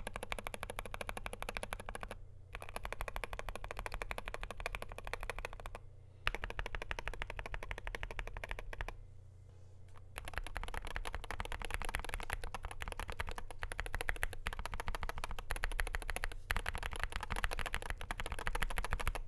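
Fast typing on a Wooting 60HE keyboard with Lekker L60 magnetic Hall-effect switches, a stainless steel plate and PBT doubleshot keycaps, foam- and tape-modded: a dense stream of keystroke clacks in runs, broken by short pauses about two, six and nine seconds in. A steady low hum lies beneath.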